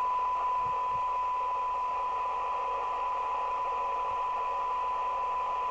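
Kernow Beta 2100 UK FM CB receiver reproducing a steady 1 kHz test tone through hiss. The weak test signal sits near the receiver's 10 dB signal-to-noise point, which is how its sensitivity is being measured.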